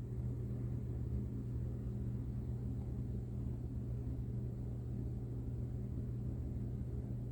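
Steady low hum with no other sounds: room tone.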